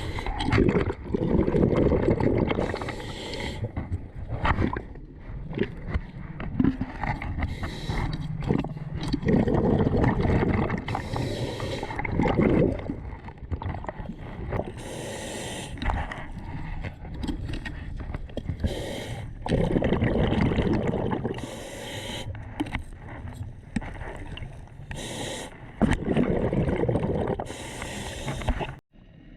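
Skin diver's breathing through a snorkel with water gurgling and splashing around the camera, coming in irregular surges a few seconds apart.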